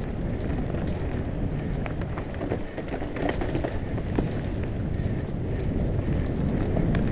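Enduro mountain bike rolling fast down a dirt singletrack: a steady rumble of tyres and wind buffeting the mount-camera microphone, with scattered clicks and rattles from the bike over rough ground.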